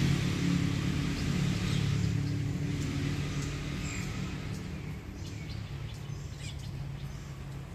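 A motor vehicle's engine hum, fading away, with short bird chirps scattered over it.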